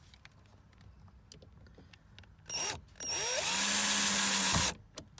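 Cordless drill-driver driving a small screw into an aluminium curtain rail: a brief pull on the trigger, then the motor spins up with a rising whine and runs for about a second and a half before stopping suddenly. It is only run to drive the screw in, not to tighten it.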